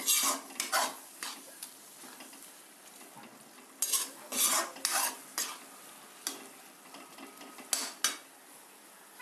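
Steel ladle scraping and stirring capsicum, onion and tomato masala in a metal kadai, in short irregular strokes that come in clusters near the start, around the middle and near the end, with a faint sizzle of frying between them.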